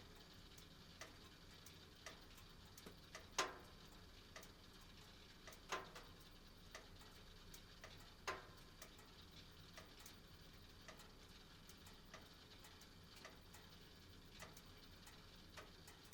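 Gas heating burner with a faint steady flame sound under irregular sharp ticks and clicks of metal expanding, three of them louder than the rest and the first three to eight seconds in.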